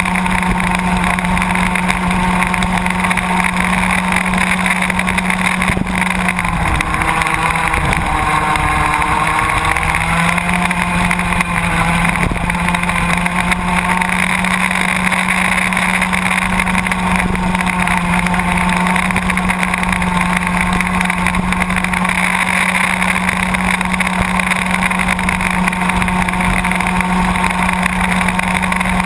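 Two-stroke racing kart engine heard from on board, running flat out with a steady high drone. About six seconds in the revs drop as the kart slows for a corner, then climb back to full within a few seconds.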